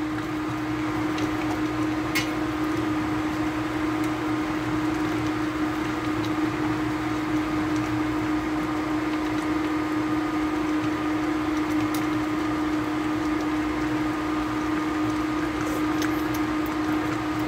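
Induction cooktop running: a steady electrical hum with its cooling fan whirring, unchanged throughout.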